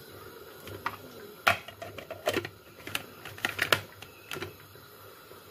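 Plastic clicks and knocks from handling an electric mini chopper as its clear lid is fitted onto the bowl full of green chillies and garlic, about eight sharp clicks spread over a few seconds.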